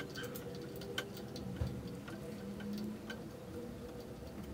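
Light, scattered metallic clicks and ticks as a lock nut is fitted and threaded by hand onto a bolt at a stepper motor's mounting plate, with a slightly sharper click about a second in and a low knock shortly after.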